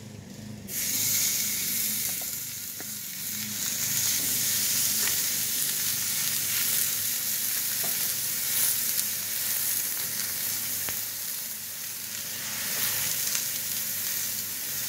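Two beef burger patties sizzling on a hot, thick steel griddle plate; the sizzle starts suddenly less than a second in as they go down and then runs steadily.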